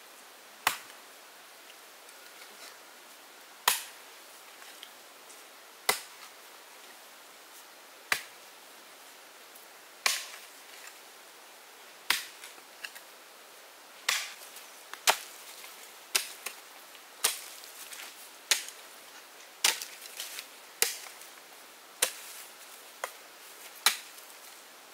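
A tool striking wood in single sharp blows, each with a short ring after it, about one every two seconds at first and then about one a second from roughly halfway through.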